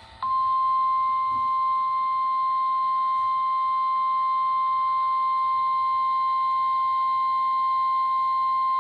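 NOAA Weather Radio 1050 Hz warning alarm tone: one steady, unbroken beep that starts about a quarter second in and holds at an even level. It signals that a warning is about to be read, here a severe thunderstorm warning.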